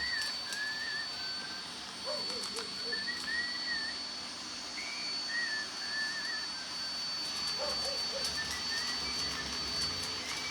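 Roomba robot vacuum running, with a steady high whine over its motor noise. Faint wavering whistle-like tones come and go over it, and short soft blips sound about two and a half seconds in and again near eight seconds.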